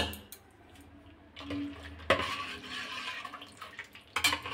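A steel ladle stirring boondi into raita in a stainless steel bowl, with wet stirring sounds from about two seconds in. A sharp clink of the ladle against the bowl comes near the end.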